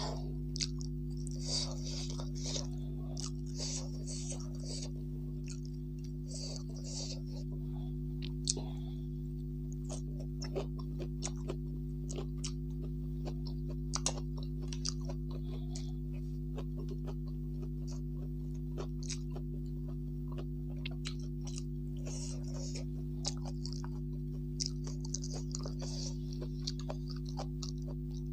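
Close-up chewing and crunching of rice and pickled Chinese cabbage, with a metal spoon clicking against the plate now and then, over a steady low hum.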